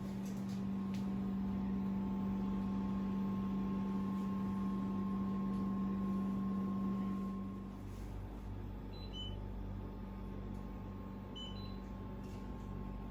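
A steady electrical or mechanical hum that drops away about two-thirds of the way through, followed by two short, high electronic beeps a couple of seconds apart.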